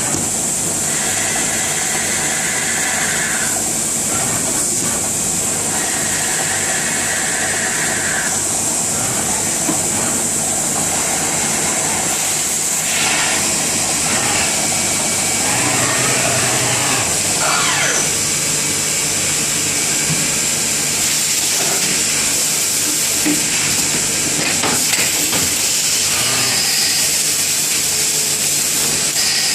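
Machine-tool noise: a machine running steadily under a constant hiss, with a whining tone that comes and goes twice in the first several seconds.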